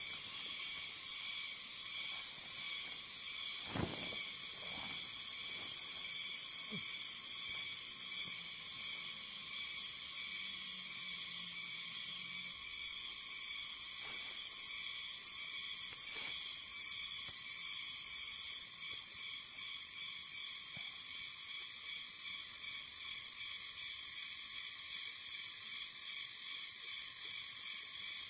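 Steady high-pitched drone of a chorus of forest insects. A few faint knocks sound in the first half, as the poncho and its wooden pole are handled.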